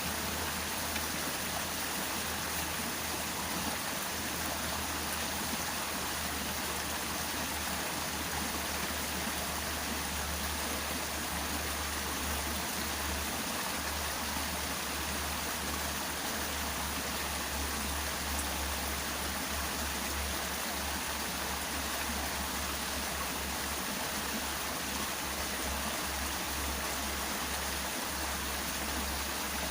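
Steady rush of flowing water, like a small stream, even and unbroken, starting suddenly at the outset.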